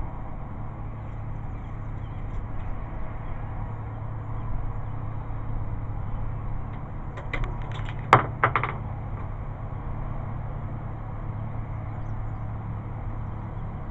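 A quick cluster of sharp metallic clicks and clacks a little over halfway through, one much louder than the rest, from handling a bolt-action rifle and its cartridges. A steady low hum runs underneath.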